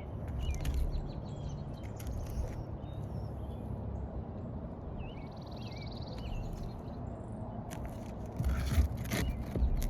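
Scraping and scattered light knocks of hand work on asphalt roof shingles, with a few louder knocks near the end. Birds chirp faintly in the background.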